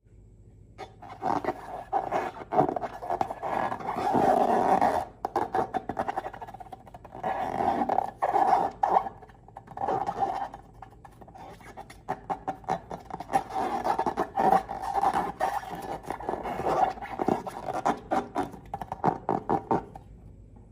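Slime being squeezed and stretched by hand: a dense run of wet, sticky clicks and crackles that swells and eases in stretches.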